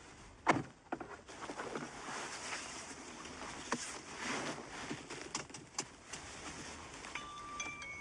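A Toyota SUV's door thumps shut about half a second in. Clothing rustles and small clicks follow as a seatbelt is pulled across and latched. A few steady chime-like tones begin near the end.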